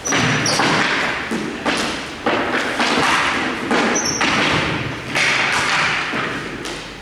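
A run of heavy thuds at irregular spacing, roughly one a second, each with a noisy echoing tail that fades before the next, and a couple of brief high squeaks.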